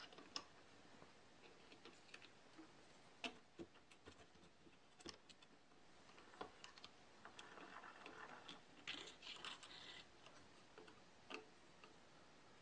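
Near silence with faint, scattered clicks and taps of small metal parts (screws, spacers, crank pieces) being handled and fitted by hand, growing busier for a couple of seconds around the middle.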